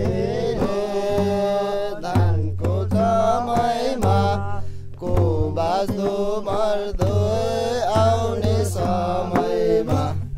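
Voices singing a Nepali village folk song in a chant-like style, over a steady low tone, with sharp percussive knocks every second or two.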